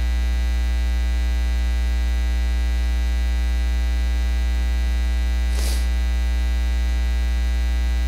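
Steady, loud electrical mains hum with a buzzy edge, unchanging throughout, with one short noisy sound about five and a half seconds in.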